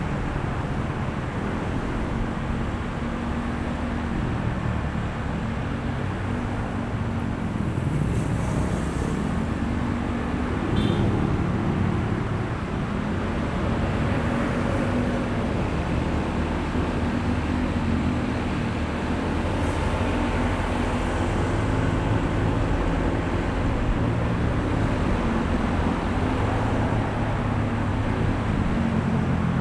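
Honda ADV160 scooter's single-cylinder engine running under way, its note rising and falling with the throttle, over steady wind and road noise. A short click about eleven seconds in.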